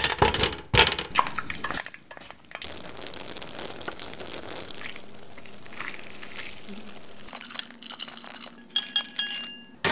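Metal clinks as a stainless steel pan is set down on a portable gas burner, then a steady sizzle of toffee bubbling in the pan. Near the end, a quick rattle and ringing clinks as chocolate chips are poured from a metal cup onto the tray.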